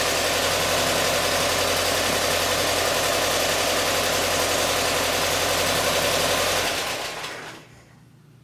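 Volkswagen Thing's air-cooled flat-four engine idling steadily, then switched off about seven seconds in, its noise dying away over about a second.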